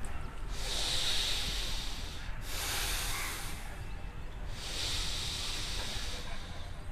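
Three long breaths drawn in and let out through the nose, heard close on a clip-on microphone: the slow, deliberate breathing of a man stretching up into tadasana (mountain pose).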